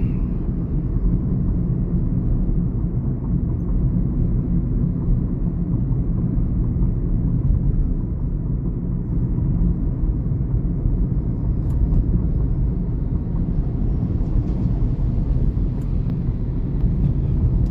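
Steady low rumble of road and engine noise inside a moving Chevrolet Onix's cabin.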